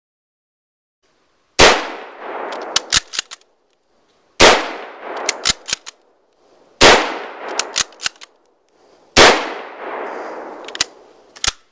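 Four shots from a Mosin Nagant M38 bolt-action carbine in 7.62x54R, the first about a second and a half in and the rest roughly two and a half seconds apart. Each shot dies away with an echo and is followed by a quick run of metallic clicks as the bolt is worked to chamber the next round.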